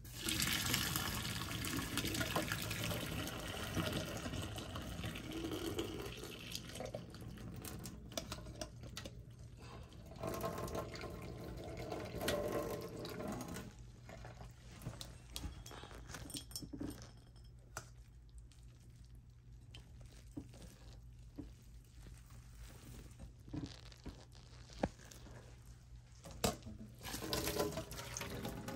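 Wet eating sounds of ramen noodles and broth being slurped and chewed, densest in the first half and turning into scattered small clicks later, over a low steady hum.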